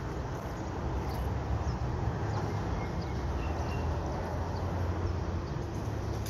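A steady low rumble of outdoor background noise, with a few faint crunches from a cat chewing dried fish.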